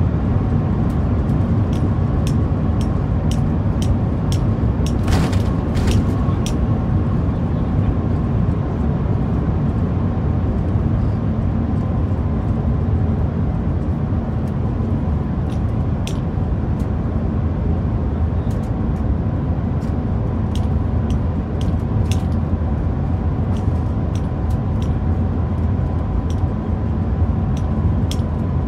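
Cabin noise of the Shanghai Transrapid maglev train running at about 350 km/h and slowing: a steady low rumble and rush of air with a faint steady whine, scattered light clicks, and a short louder rush of noise about five seconds in.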